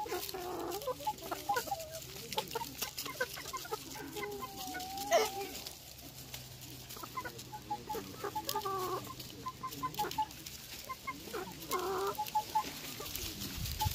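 A flock of Hmong mix chickens clucking, with many short overlapping clucks and one longer drawn-out call about four to five seconds in. A sharp tap, the loudest sound, comes just after five seconds.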